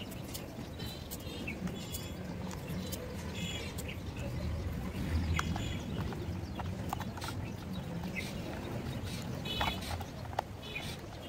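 Small screwdriver driving screws into a plastic toy car's underside: scattered light plastic clicks and scrapes over a low outdoor rumble, with a few short high bird chirps.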